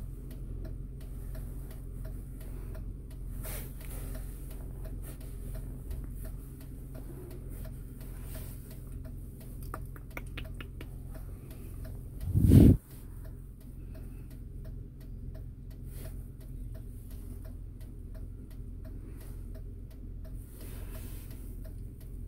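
Steady, even ticking at about one and a half ticks a second, like a car's blinker, over the low steady hum of the car cabin. A brief loud thump comes about halfway through.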